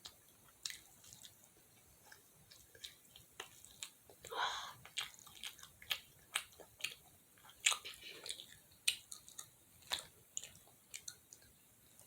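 Chewing and biting into fried chicken close to the microphone: a long irregular run of sharp crisp crunches and mouth clicks, with a louder, longer crunch or bite about four and a half seconds in.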